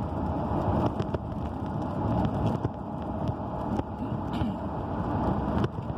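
Steady low rumble inside a stationary car's cabin.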